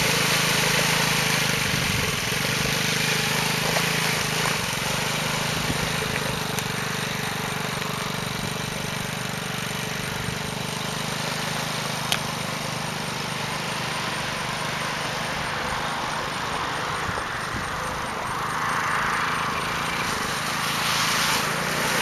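Small youth ATV engine running steadily as the quad drives through shallow muddy puddles on grass, with water splashing under the wheels.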